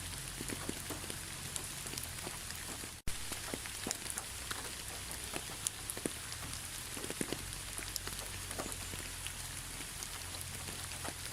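Steady rain falling, with many individual drops ticking close by. The sound cuts out for an instant about three seconds in.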